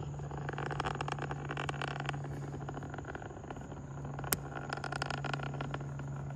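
Falcon 9 rocket's Merlin engines heard from far off: a steady low rumble with dense crackling. A single sharp click comes a little over four seconds in.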